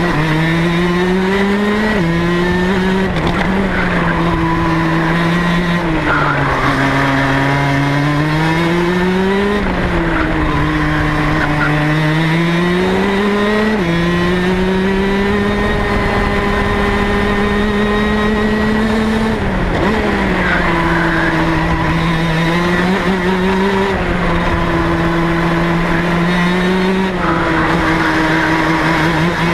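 Rotax DD2 kart's two-stroke engine at racing speed, its pitch climbing steadily and then falling away over several seconds at a time, with a few sudden drops in pitch.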